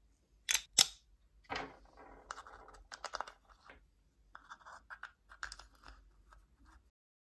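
Plastic parts of a small-engine carburetor being handled and taken apart by hand: two sharp clicks near the start, then irregular scraping, rustling and small clicks of plastic pieces.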